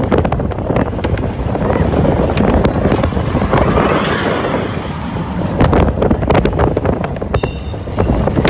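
Seven Dwarfs Mine Train roller coaster cars running fast along the track: wheels rattling and clacking, with wind buffeting the microphone. Near the end, chiming music begins.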